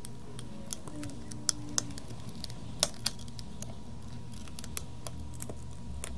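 Plastic enclosure of a Toshiba external hard drive being pried open with a flat pry tool: a scatter of sharp clicks and snaps as the case clips give, loudest just under three seconds in. A steady low hum runs underneath.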